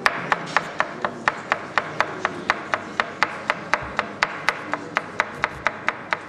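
Chef's knife chopping onion on a cutting board in a steady run of quick strokes, about four a second.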